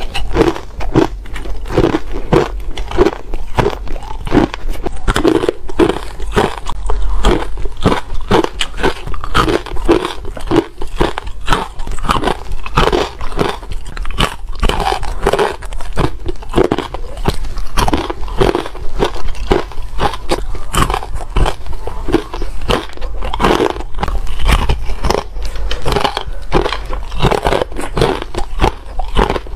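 Close-miked biting and chewing of chunks of ice: a dense run of crisp crunches, squeaky and crunchy, one after another without pause.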